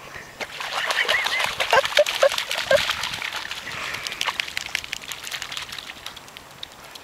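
A dog rolling in shallow wet mud and scrambling up through it: a dense run of wet splashing and squelching that thins out after about five seconds. A few short squeaky calls come through around two seconds in.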